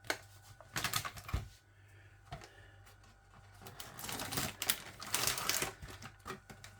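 Microwave-meal packaging being opened by hand: cardboard and plastic wrapping clicking and crinkling, with a burst of crinkly rustling a little past the middle.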